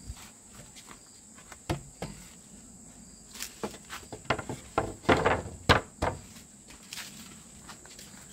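A steady high insect drone runs under scattered knocks and light clatter from materials being handled, with a denser burst of clatter and rustling just past halfway.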